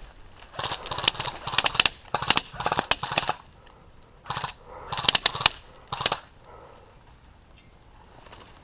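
Airsoft automatic rifle firing in several rapid full-auto bursts of rattling shots, the last burst ending about six seconds in.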